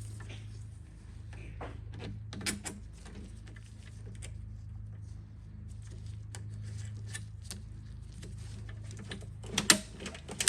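Scattered light clicks and rattles of mower cable and handle parts being handled, with a short run of louder clicks near the end, over a steady low hum.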